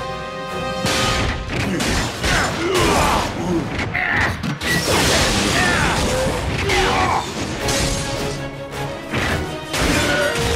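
Dramatic action-score music mixed with fight sound effects: repeated crashes, metallic thuds and whooshes.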